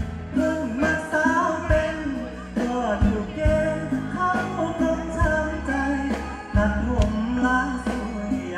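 A man singing a Thai luk thung song into a microphone over amplified band music with a steady drum beat and bass.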